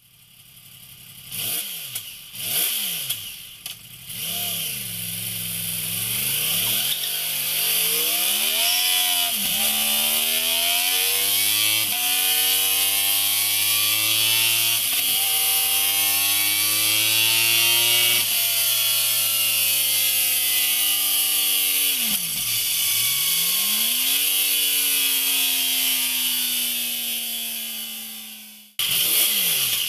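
Yamaha YZF R1's inline-four engine, first revved in a few quick blips, then pulling up through the revs in a long climbing run with small steps in pitch, a sharp drop about two-thirds of the way through and a fresh climb, before cutting off suddenly near the end.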